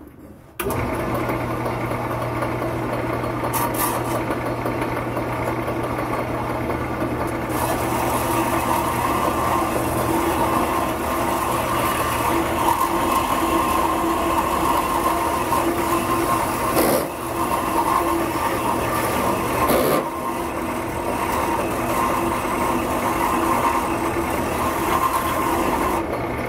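Metal-cutting vertical-horizontal bandsaw switched on about half a second in, its motor running steadily at its lowest speed. From about eight seconds in, a higher scraping hiss joins as the fine blade cuts into a steel wrench.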